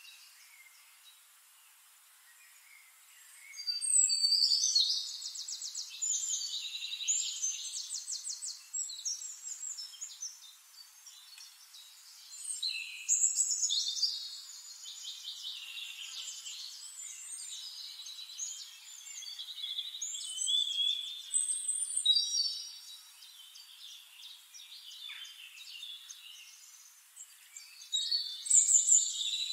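Small songbirds singing in phrases of rapid, high-pitched trills and chirps, each a second or two long, recurring every few seconds.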